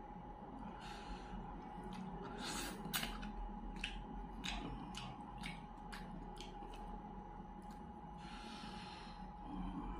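Close-up eating sounds of a man chewing fried fish: a run of wet mouth clicks and lip smacks, with a couple of breaths through the nose.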